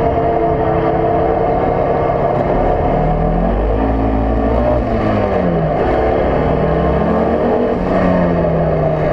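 Race car engine heard from inside the cockpit under hard driving on track, its pitch climbing under acceleration and falling back twice, about five and eight seconds in.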